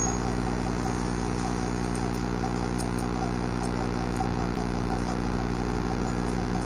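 Steady low mechanical hum that does not change, with a few faint, crisp snips of barber's scissors cutting hair partway through.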